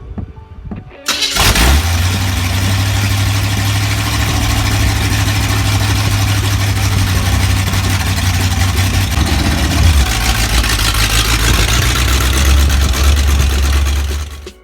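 The 1961 Chevrolet Impala's engine fires up about a second in and runs loudly and steadily. Its low note drops about ten seconds in as the revs settle.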